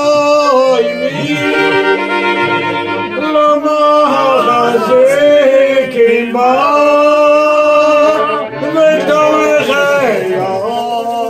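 Violin and accordion playing a Jewish melody together, with men's voices singing along.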